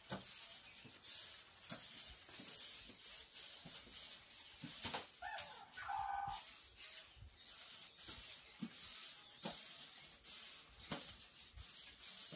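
Toy robot dogs walking on a hard floor: small motors whirring in short spurts and plastic feet clicking and tapping. A brief electronic chirp or bark-like tone comes about five to six seconds in.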